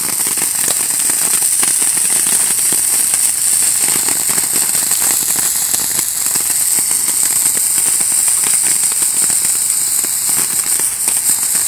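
Large handheld sparkler burning: a steady hiss with constant fine crackling of the sparks.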